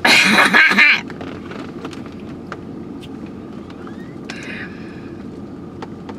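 Steady low hum inside a car's cabin, opened by a loud, breathy vocal outburst from one of the people in the car, lasting about a second.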